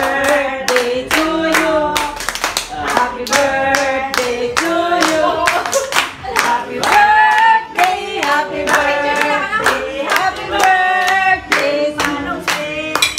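A small group of voices singing a birthday song together, with hand clapping in a steady beat.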